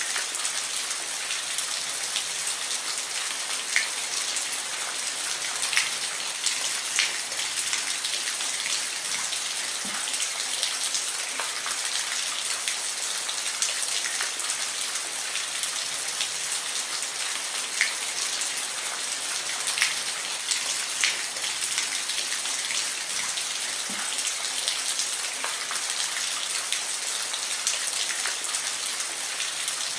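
Steady rain falling, a constant hiss with individual drops ticking sharply on a surface.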